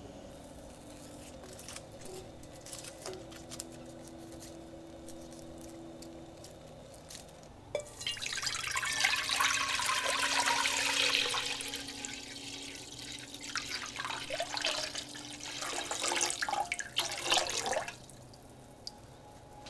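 A few light taps as garlic cloves are set down on a griddle, then about eight seconds in water is poured into a saucepan, splashing loudly for around four seconds and continuing in a few more uneven spurts until it stops near the end.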